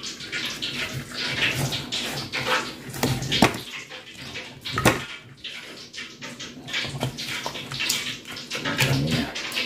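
Wet squelching and rubbing of hands working lime juice and salt into a scored whole gourami in a metal wok, with two sharp knocks about 3.5 and 5 seconds in.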